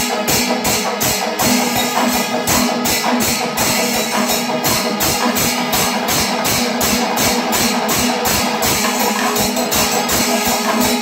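Panchavadyam, the Kerala temple orchestra of timila and maddalam drums with ilathalam cymbals, playing a fast, even beat of about three to four strokes a second, with a steady held tone underneath.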